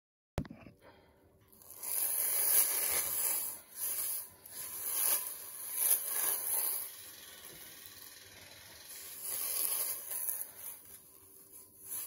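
A knitted dishcloth scrubbing the inside of a wet cast iron skillet, a rough rubbing that swells and fades in uneven strokes, starting about a second and a half in.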